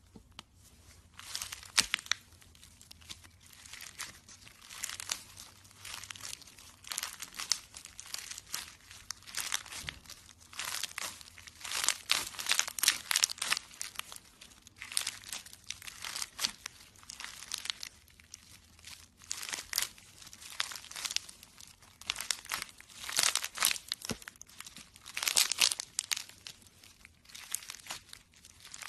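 Slime being squished and stretched by hand, with irregular clusters of crackling and popping.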